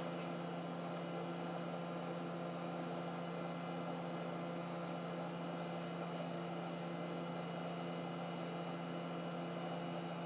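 Steady electrical hum with an even hiss from running repair-bench equipment, unchanging throughout.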